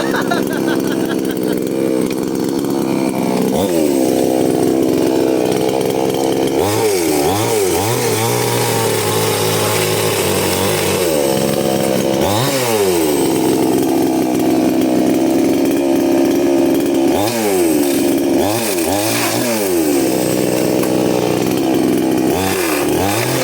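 Off-road 4x4's engine running, revved up and let back down again and again, about seven times, with steady running in between.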